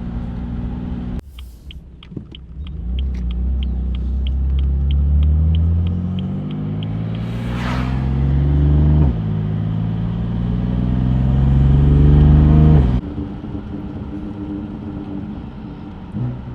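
BMW F80 M3's twin-turbo straight-six, run through a VRSF single mid-pipe with the secondary cats and mid resonator removed, pulling hard: the exhaust note rises, drops at a gear change about nine seconds in, and rises again. It cuts off sharply when the driver lifts about thirteen seconds in, falling back to a deep, steady drone. A light, regular ticking runs through the first half.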